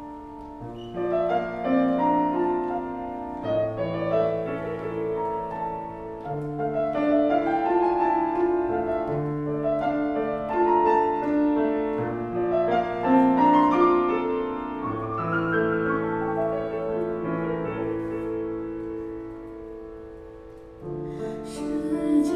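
A grand piano plays a slow, gentle instrumental passage of sustained chords under a simple melody. Near the end the music gets louder as a woman's singing comes back in.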